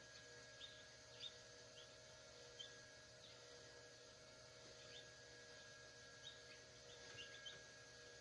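Newly hatched chicks peeping faintly in an incubator: scattered short, high peeps, some in quick little runs, over a steady hum.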